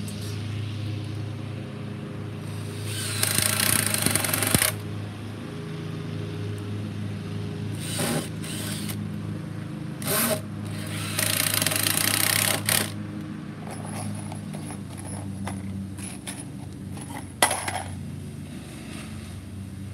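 Cordless drill driving screws into a wooden 2x4 frame in several runs: a run of about a second and a half early on, two short bursts, then another longer run, and a sharp click near the end.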